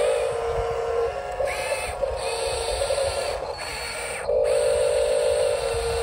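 Small electric gear motors of an RC construction model whining in short runs, the pitch and loudness stepping as motors start, stop and change, loudest again from about four seconds in.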